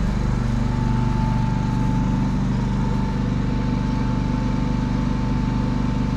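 Genmax GM10500iETC tri-fuel inverter generator's 458 cc four-stroke OHV engine running steadily on propane at about 25% load. A thin steady whine sits above the low engine hum.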